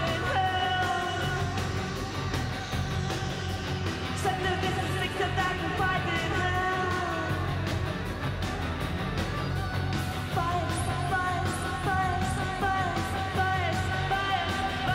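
A live rock band playing space rock: a steady drum beat with cymbals, bass and long held keyboard or violin notes, with a singer's voice over them. A new layer of higher held notes comes in about ten seconds in.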